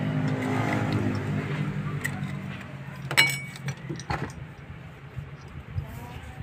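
A motor vehicle's engine hum that fades away over the first three seconds as it passes. About three seconds in, a sharp metallic clank with a brief ring as cast-iron hand pump parts knock together, followed by a few lighter knocks.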